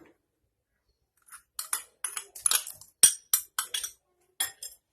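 A spoon clinking and tapping against a mixing bowl: quiet at first, then a quick run of light clinks from about a second in, as chopped tomato is scraped into the beaten egg mixture.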